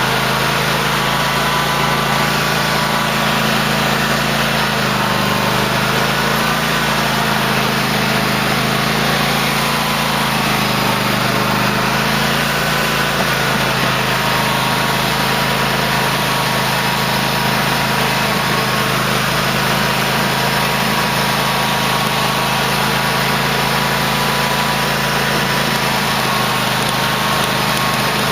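The engine of a 2008 Cub Cadet LT1050 lawn tractor running steadily under throttle, its pitch wavering slightly now and then.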